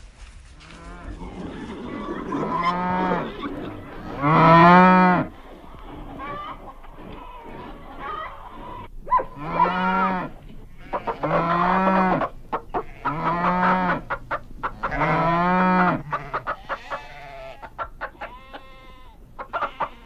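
Farm livestock calling: a run of about eight drawn-out calls of around a second each, each rising and falling in pitch, with hens clucking in between.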